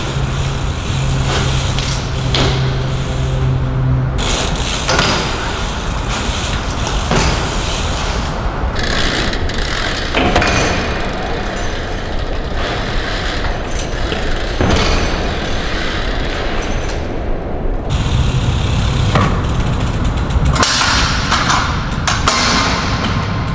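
BMX bike being ridden on concrete: tyres rolling, with repeated sharp knocks and thuds from landings and the bike's parts striking the ground. A steady low hum runs under it at the start and again from about two-thirds of the way through.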